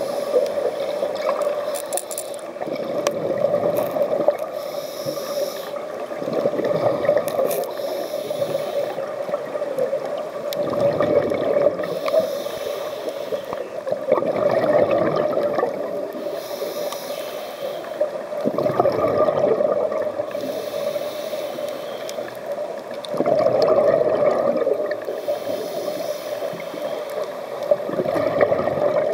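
Slow, rhythmic breathing of the person filming underwater, with water gurgling. There is about one breath every four seconds.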